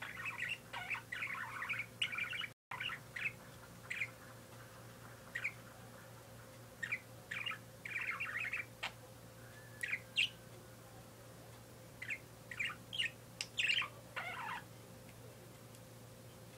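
Pet parakeet chirping and chattering in quick runs of short high chirps: a dense burst at the start, scattered single chirps through the middle, and another burst near the end.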